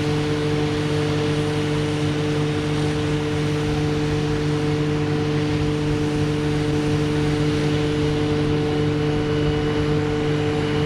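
Heavy farm harvest machinery running steadily, with two constant humming tones over the engine noise.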